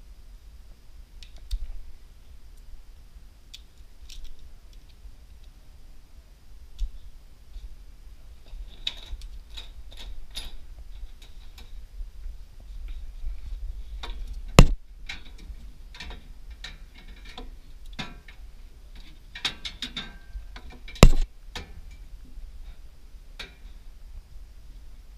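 Hands working on a snack vending machine: scattered clicks and light metal-and-plastic rattling, with two sharp knocks, one a little past halfway and one near the end.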